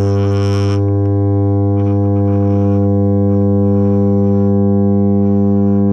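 Electronic keyboard at maximum volume holding a steady low drone that reproduces a 50 Hz electrical transformer hum: a deep, unchanging buzz with a stack of even overtones.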